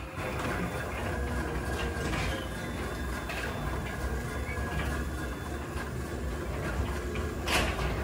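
Chamberlain garage door opener running steadily as it lowers the sectional garage door, with a sharper knock near the end.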